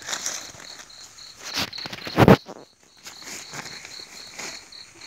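An insect chirping steadily in high, even pulses, about three a second, over brief rustling and handling noises, with one loud thump about two seconds in.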